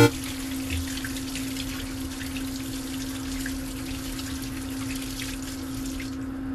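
Tap water running and splashing over a cucumber as hands rub and rinse it in a stainless steel sink, with a steady low hum underneath. The higher part of the hiss dulls about six seconds in.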